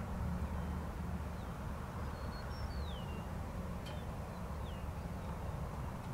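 A few short, falling bird whistles over a steady low rumble.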